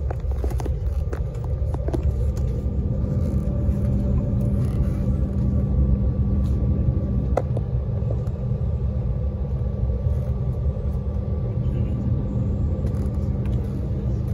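Cabin sound of an Embraer 190 taxiing: a steady low rumble and hum from its CF34 turbofans at taxi power, with a faint high whine. A few small clicks come near the start and one sharp click about halfway.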